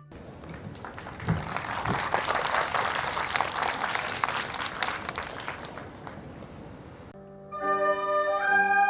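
Audience applauding for about seven seconds, slowly thinning. Near the end it cuts to music: sustained wind-instrument notes, a flute melody over lower held tones.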